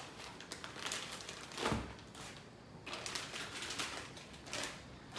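Clear plastic packaging bag crinkling and rustling as the boxed unit wrapped in it is handled and lifted out of its foam packing, with one soft thump a little under two seconds in and a short lull just after.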